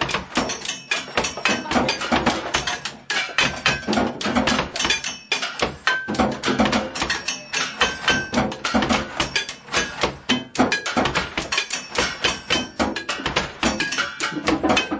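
Improvised drumming on kitchen objects: a fast, dense run of sharp strikes, some of them leaving a brief ringing tone.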